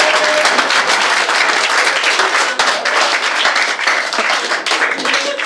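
Audience applauding: dense, loud clapping from many hands.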